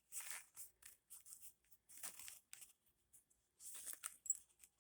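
Faint rustling of a small fabric gear pouch being handled and opened, in a few short rustles.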